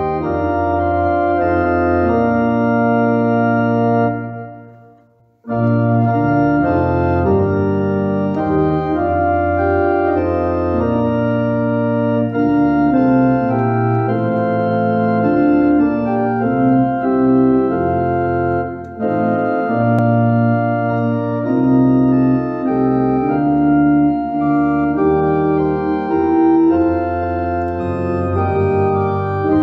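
Organ playing a hymn tune in sustained chords. About four seconds in it fades away and breaks off, then starts again abruptly a second later with the next verse.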